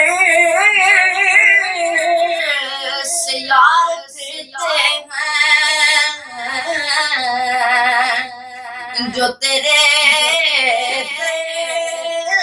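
A boy singing an Urdu naat solo, holding long, wavering notes with ornamented turns, broken by a few brief breaths between phrases.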